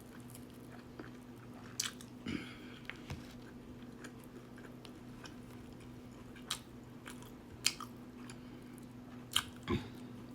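Close-up mouth sounds of someone eating Korean fried chicken and rice: biting and chewing, with scattered short wet clicks a few seconds apart. A steady low hum runs underneath.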